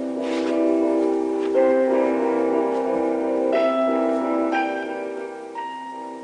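Slow piano music: sustained notes and chords changing every second or so, growing quieter near the end.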